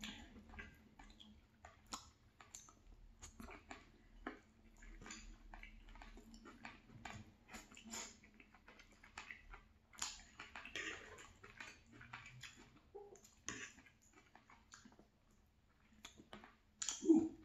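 Close-up chewing of a chicken and vegetable stir fry: irregular wet crunches and mouth clicks, with a louder short sound near the end.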